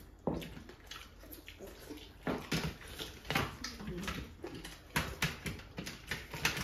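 Hands squelching and mashing curry-soaked rice on steel plates, with chewing and lip smacking, in irregular wet clicks and squishes.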